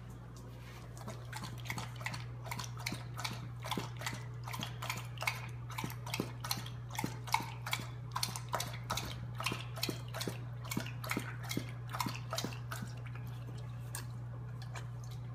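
A pit bull lapping water from a bowl: a quick, even run of wet laps about three a second that stops about two seconds before the end. A steady low hum runs underneath.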